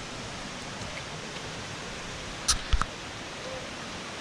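Steady rush of stream water, with two sharp knocks in quick succession about two and a half seconds in.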